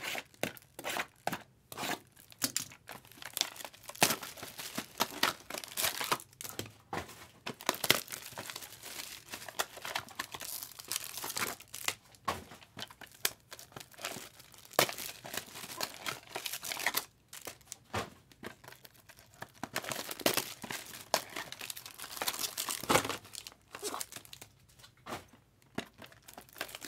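Plastic wrapping on sealed baseball card boxes and packs being crinkled and torn open by hand: irregular crackling throughout, with sharper tears now and then.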